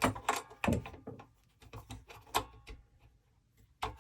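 Clicks, knocks and light clatter of sharpener parts being handled and set in place on the bench, in several quick clusters: near the start, around the middle, and one sharp knock near the end. The machine is not running.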